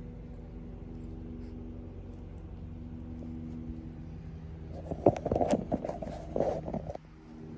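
German Shepherd puppy suckling, with faint wet clicks over a steady low hum. About five seconds in comes a louder rustle of fur against the microphone, lasting about two seconds.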